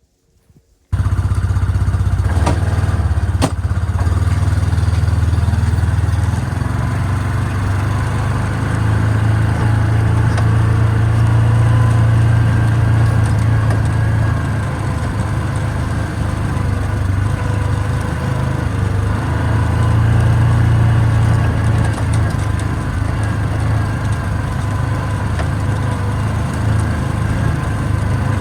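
Coleman Outfitter 550 UTV engine running, starting suddenly about a second in. It then drives on at a steady drone that swells and eases a couple of times as the revs rise and fall.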